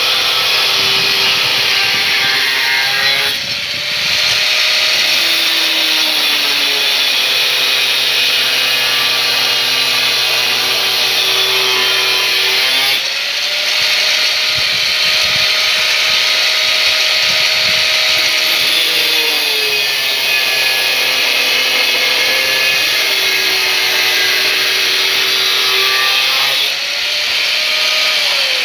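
Electric angle grinder running and cutting or grinding. The motor note drops when the disc bites and rises again when it spins free, in three loaded stretches separated by free running.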